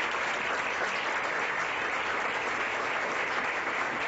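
Audience applauding, a steady clapping that holds throughout.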